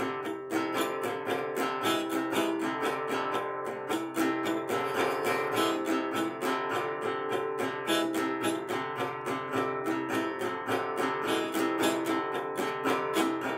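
Acoustic guitar strummed in a steady rhythm, about four strokes a second.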